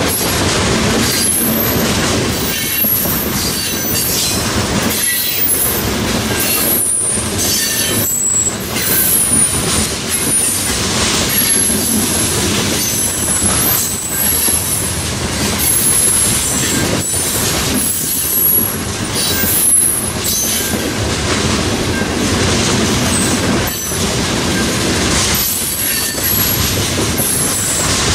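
Train cars rolling past, wheels clacking over the track and squealing in short high-pitched bursts that come and go.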